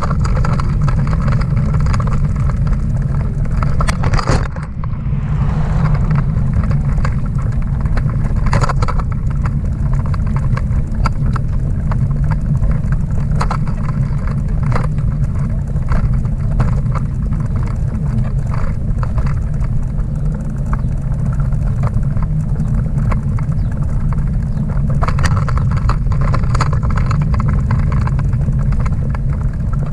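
Steady low rumble of a towed Schwinn dog bike trailer rolling over pavement, as heard from a camera strapped inside the trailer, with frequent small clicks and rattles as it goes over bumps.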